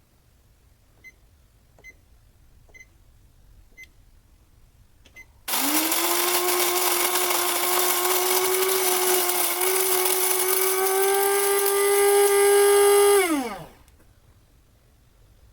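Five faint electronic beeps from the Panasonic NC-A58 coffee maker, about one a second, then its built-in coffee mill motor starts and runs loudly and steadily for about eight seconds, its pitch creeping up slightly, before it cuts out and winds down with a falling whine.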